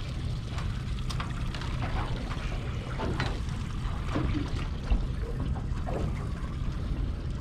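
Water lapping and trickling against the hull of a small boat over a steady low rumble, with a few light knocks and rattles.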